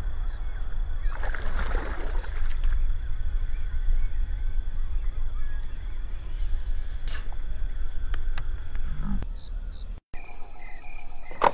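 Wetland ambience: insects chirping in a steady, evenly repeating pulse over a low rumble, with a brief rustling burst about a second in. About ten seconds in it cuts to a different pulsing insect chorus, with one sharp click near the end.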